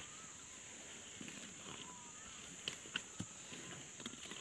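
Komodo dragons feeding together on a carcass: quiet, scattered crunching and knocking as they tear at it, with a few sharper knocks about three seconds in, over a steady high hiss.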